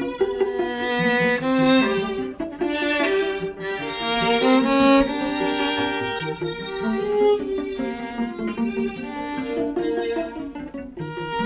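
A string quartet of two violins, viola and cello playing with bows: several held notes sound together and shift to new ones about every second.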